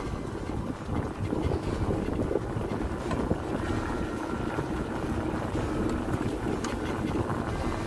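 Steady rumble of the dog-team rig rolling over a dirt trail behind running huskies, with wind buffeting the microphone.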